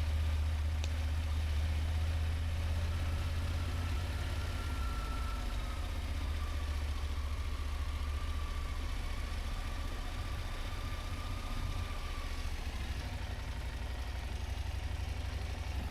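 Motorcycle engine running steadily, a low even hum with no change in revs. A faint thin whine comes in a few seconds in and fades out near the end.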